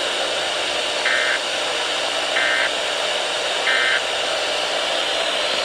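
Emergency Alert System end-of-message signal: three short, identical bursts of buzzy digital data tones, about a second and a quarter apart, over steady radio hiss.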